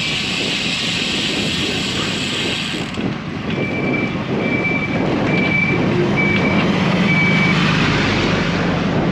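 Reversing alarm on a work truck beeping five times at one steady pitch, about one beep every 0.7 seconds, with the truck's engine running low beneath. Wind rushes on the microphone during the first few seconds.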